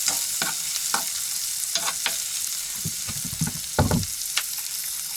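Food sizzling in a hot frying pan as a fried base for a potato stew is made, with the clicks and scrapes of a utensil against the pan. A louder dull knock comes nearly four seconds in.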